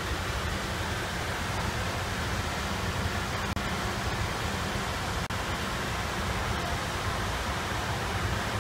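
Steady rushing noise of water circulating in a large aquarium tank, broken by two momentary dropouts about three and a half and five seconds in.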